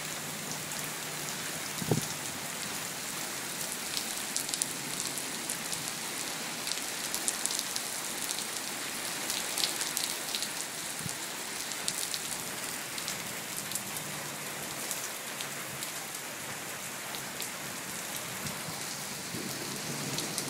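Heavy rain falling steadily on the street and driveway, with many individual drops heard as sharp ticks close by. A single brief knock stands out about two seconds in.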